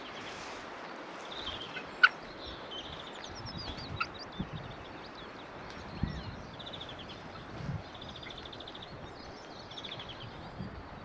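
Siberian jays calling: repeated rattling calls and short rising and falling notes, with a few sharp clicks or taps, the loudest about two seconds in.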